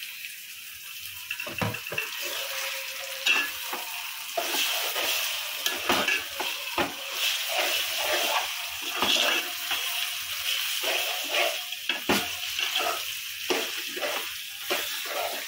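Chicken pieces sizzling in hot oil with fried onion and ginger-garlic paste in an aluminium pot, stirred and scraped with a metal spatula. A few sharp clanks of the spatula against the pot come through.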